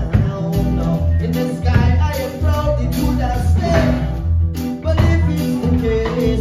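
Live band playing a song: electric and acoustic guitars and drums, with a man singing lead into a handheld microphone and a woman singing at a second microphone.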